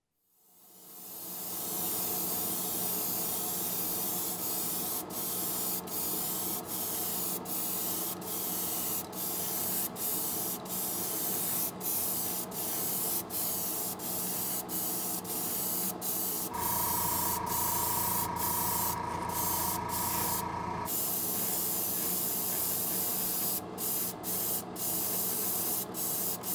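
Airbrush spraying paint onto a small plastic model part: a steady hiss that fades in at the start and is cut by many brief breaks as the trigger is let off and pressed again.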